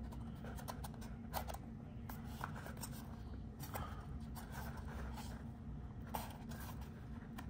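Cardboard watch packaging being handled and opened by hand: light rubbing and scraping with scattered small clicks and taps.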